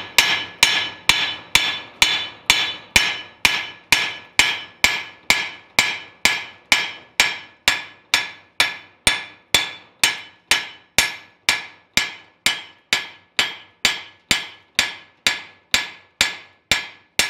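Ball-peen hammer striking the weld-repaired face of a steel anvil in a steady rhythm of about two blows a second, each blow ringing briefly: the fresh welds on the face are being peened down.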